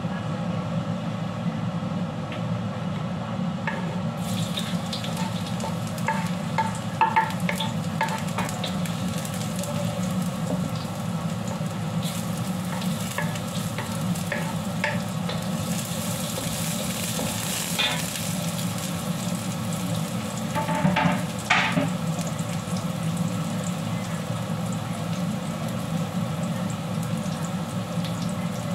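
Hot oil sizzling in a steel wok, coming in about four seconds in, with chopped garlic frying in it and a wooden spatula scraping and knocking against the pan now and then. A steady low hum runs underneath.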